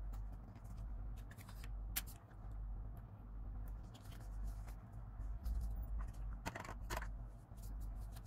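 Paper and washi tape being handled on a journal page: short rustles, crinkles and taps, with a louder cluster of rustling about six and a half seconds in, over a low steady hum.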